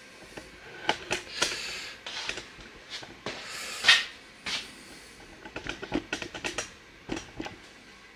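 A glass jar being handled after washing: scattered clicks and knocks of glass and fingers, with a few short rubbing or rustling bursts, the loudest a little before the middle.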